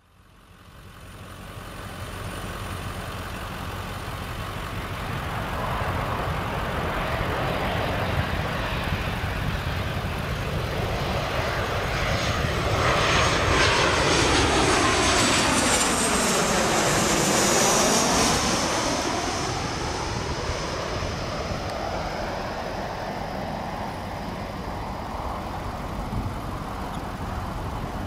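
Jet airliner flying low overhead: engine noise builds, is loudest around the middle as the plane passes, with a high engine whine that drops in pitch, then slowly eases off.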